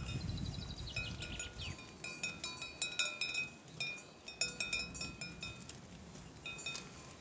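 Small metal bells tinkling and ringing in irregular, overlapping strikes, each note ringing on briefly.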